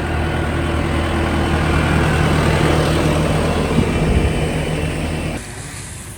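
An engine running steadily at a constant speed, with a few low thumps about four seconds in; it cuts off suddenly near the end.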